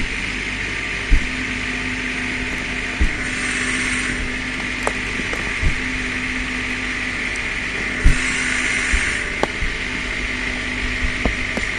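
An 18 hp compact tractor's engine running steadily under load, hauling on the stump-pulling rig, with scattered sharp cracks and knocks from the straining stump and rigging. The loudest crack comes about eight seconds in.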